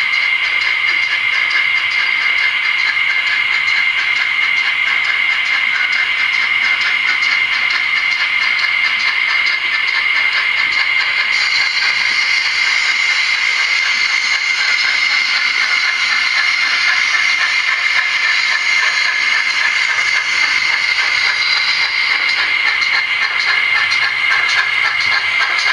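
Steady, loud hiss with a fine fast flutter in it, from a sound-fitted model steam locomotive's speaker.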